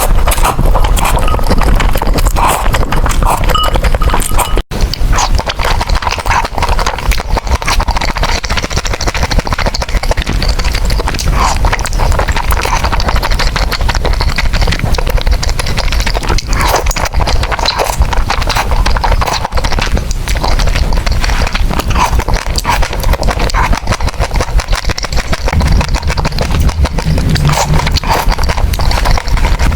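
Close-miked mouth sounds of someone eating noodles: a continuous, dense run of wet chewing clicks and smacks.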